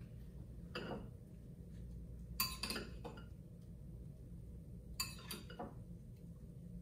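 A spoon clinking against a bowl a handful of times as chopped cherry tomatoes are scooped from one bowl into another; the sharpest clinks come about two and a half and five seconds in.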